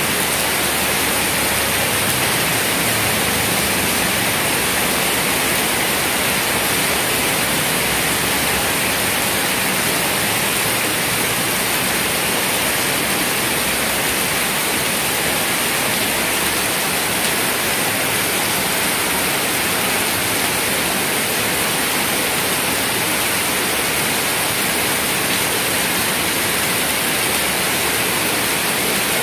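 Heavy rain falling steadily in a downpour, a dense even hiss of rain on wet pavement and puddles.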